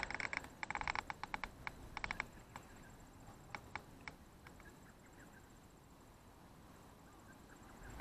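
Fishing reel being wound, a rapid clicking in three short bursts over the first two seconds, then a few single clicks and quiet open-air background.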